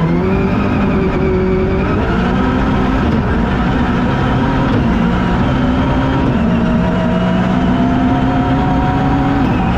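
Toyota GT86's 2.0-litre flat-four (FA20) engine running hard under load. Its pitch holds fairly steady, then climbs slowly over the last few seconds.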